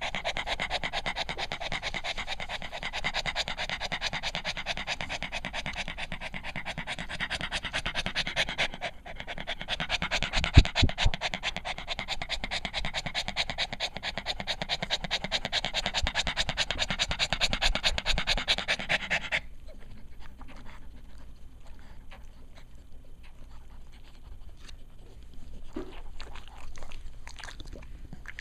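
Cavalier King Charles Spaniel mother panting rapidly and steadily a day after whelping, with her puppies nursing: normal postpartum panting from tiredness, warmth and the milk letdown. There are a couple of low bumps about a third of the way in. The panting stops abruptly about two-thirds of the way through, leaving only faint rustles and clicks.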